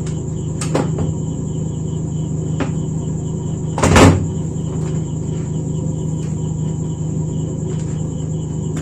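Plastic housing of a Prestige induction cooktop being opened by hand: a few sharp plastic clicks, and one loud knock about four seconds in as the top panel comes loose from its base. A steady low hum and a high steady whine run underneath.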